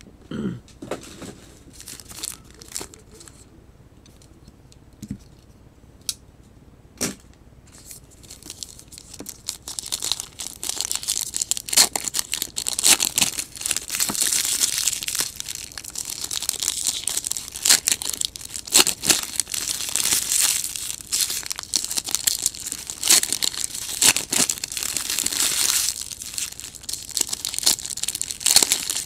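A few light clicks and knocks as a card box is handled, then, from about ten seconds in, continuous crinkling and tearing of foil trading-card pack wrappers as the packs are ripped open.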